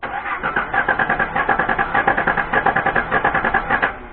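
Nissan Fairlady Z (Z31) VG20DET turbo V6 cranking on its starter: a rhythmic chug of about nine beats a second that never catches and stops just before four seconds in. This is the engine's no-start fault.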